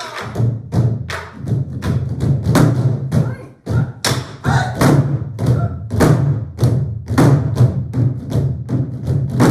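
An ensemble of Korean barrel drums (buk) played together in a brisk, driving rhythm. Deep thuds on the drumheads are mixed with sharp cracks from sticks hitting the drums' wooden bodies.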